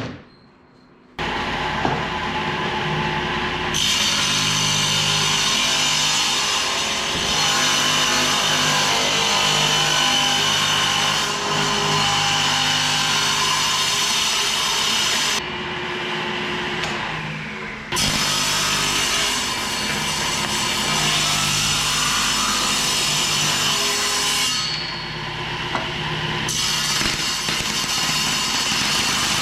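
Power saw cutting CPVC pipe, running steadily with two brief lulls where the cut eases.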